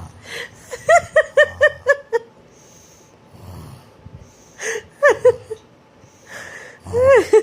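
A small child's pretend snoring: short noisy snorting breaths, broken up by high-pitched giggles. There is a quick run of giggles about a second in and more near the end.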